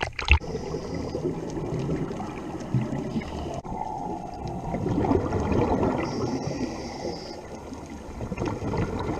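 Water rushing, gurgling and bubbling close to the microphone, a dense steady noise that swells around the middle, after a sharp knock or splash right at the start.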